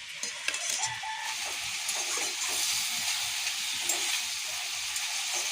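Hot oil sizzling in a cooking pot with chillies frying in it, a steady hiss that grows a little louder after about two seconds. A few light clicks in the first second.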